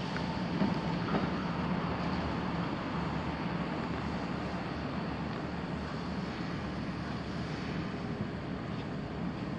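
Steady rumble and hum of electric trains at a station platform: an older Kintetsu train slowly pulling in, alongside the stationary Kintetsu 8A series set.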